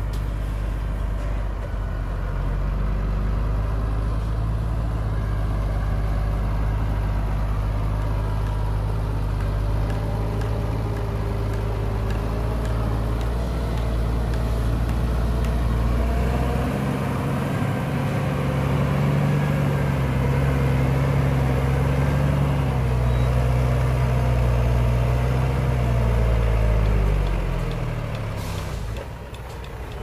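Scania 124C dump truck's diesel engine pulling the loaded truck slowly over soft dirt; the engine note rises about halfway through, wavers, and drops away near the end as the truck eases off.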